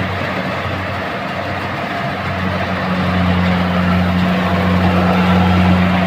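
Engine of heavy machinery running steadily with a low hum, growing louder about halfway through.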